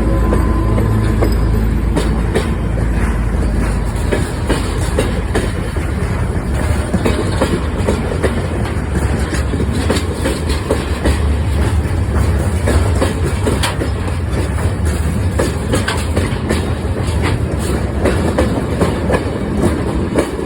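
2M62 diesel locomotive rolling past, its two-stroke diesel engines rumbling low under a dense, irregular clatter of wheels over the rail joints. A steady engine tone fades out about a second in.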